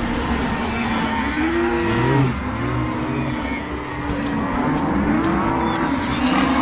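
Exaggerated cartoon stomach-growling sound effect: long, wobbling growls whose pitch bends up and down, several overlapping one another without a break.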